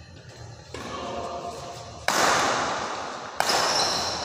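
Badminton rally on an indoor court: sharp racket hits on the shuttlecock and footfalls on the wooden floor, with two loud hits about a second and a half apart in the second half, each ringing on in the hall's echo.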